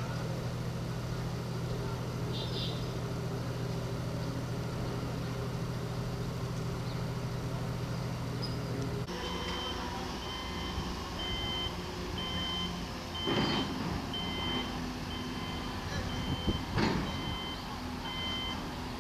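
A heavy construction machine's diesel engine running steadily. About halfway through, the sound changes to a reversing alarm beeping about once a second, with two loud knocks a few seconds apart.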